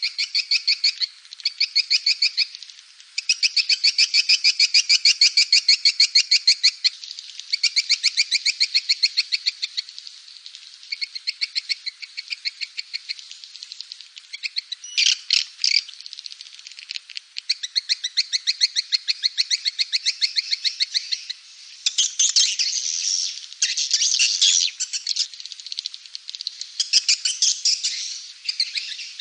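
Swiftlet calls used as a lure sound for swiftlet nest houses: fast rattling trains of clicky chirps, repeated in bursts of a few seconds each.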